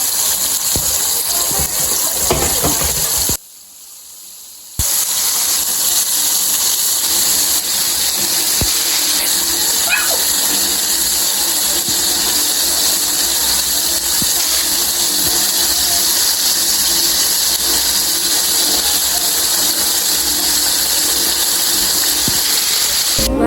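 Flour-coated chicken deep-frying in a pot of hot oil: a loud, steady sizzle that cuts out once for about a second and a half a few seconds in.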